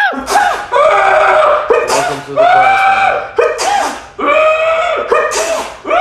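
Loud, high screams and short sneezes trading back and forth in a rapid chain, one setting off the other, several times over.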